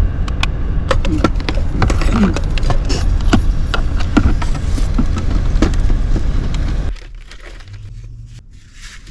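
Wind buffeting the microphone with a heavy rumble, with a scattered run of sharp clicks and knocks over it; about seven seconds in the rumble drops away suddenly.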